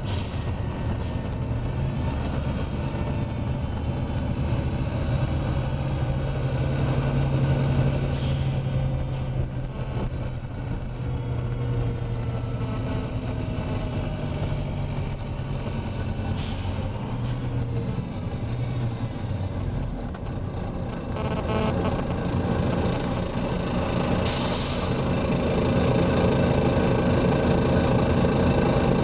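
Volvo B9TL double-decker bus's engine running under way, heard from on board, with three short hisses of compressed air from the air system. Near the end the engine note picks up and grows louder as the bus pulls harder.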